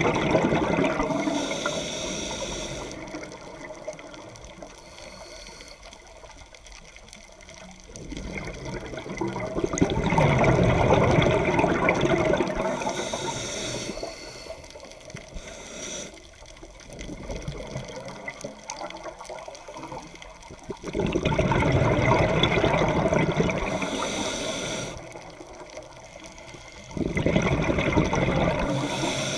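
Scuba diver breathing through a regulator, heard underwater: long surges of exhaled bubbles about four times, each followed by a short hiss of the in-breath, with quieter stretches between.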